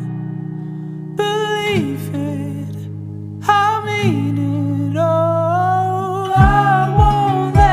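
A pop ballad with a sustained bass and a held, bending vocal or instrumental melody. Low drum beats come in about three-quarters of the way through.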